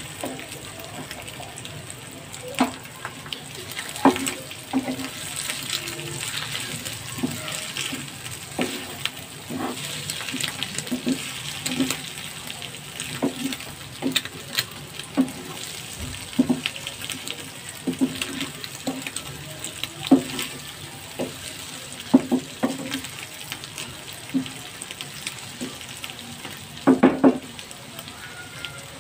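Egg, onion and tomato sizzling as they fry in a non-stick pan, with a wooden spatula knocking and scraping against the pan as the mixture is stirred at irregular intervals. Near the end comes a quick run of louder knocks.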